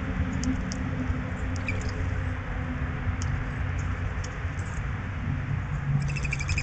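Squirrels foraging and cracking seeds in a layer of seed hulls: scattered small clicks and crunches over a steady low background noise. A quick run of high chirps comes near the end.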